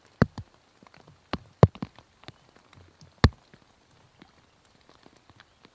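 Scattered raindrops striking close to the microphone: sharp single taps at uneven intervals about a second apart, a few of them loud, over a quiet background.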